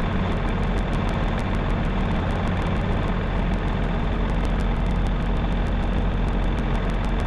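A vehicle engine running steadily with a low rumble, with a rapid, irregular scatter of faint ticks over it.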